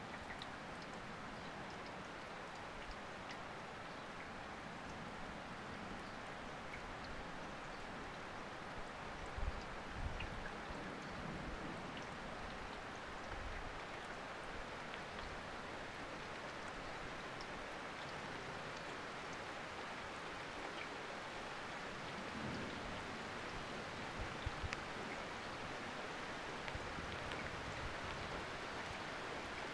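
Steady rain falling: an even hiss. A few brief low thumps stand out, around ten seconds in and again a little past twenty seconds.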